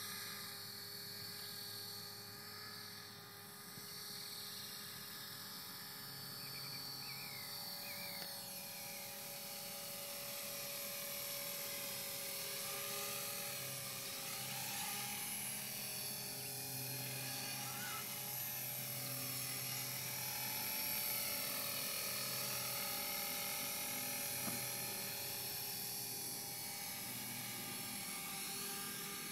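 Esky CPX electric radio-controlled helicopter in flight: a steady whine of motor and spinning rotor, shifting slightly in pitch and loudness as it manoeuvres.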